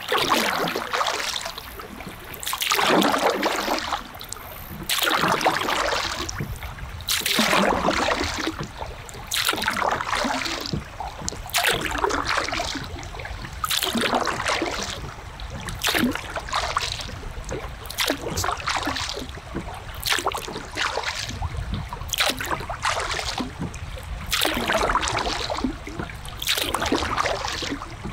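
Kayak paddle strokes in calm river water: a splash and a trickle of drips from the blade about every two seconds.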